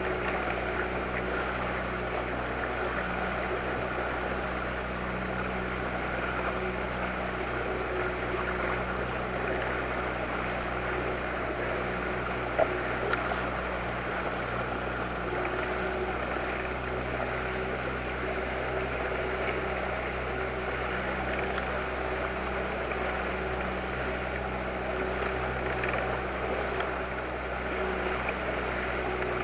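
Outboard motor of an inflatable boat running at a steady speed, a constant hum with water rushing along the hull. A single short click about halfway through.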